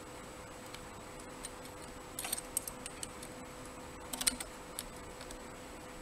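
Light metallic clicks and scrapes of a thin tension wrench being fitted into the keyway of a dimple lock cylinder, in two short clusters about two and four seconds in.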